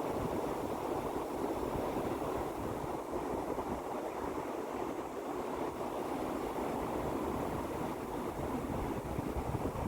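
Sea surf washing continuously: a steady, even rush of water with no separate wave breaks standing out.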